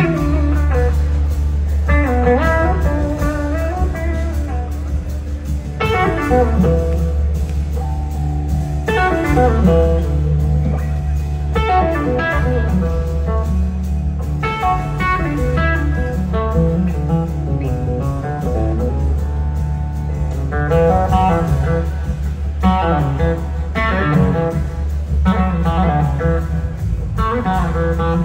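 Live blues-rock band playing: an electric guitar solo in phrases whose notes glide and bend up and down, over a steady low bass and light drums.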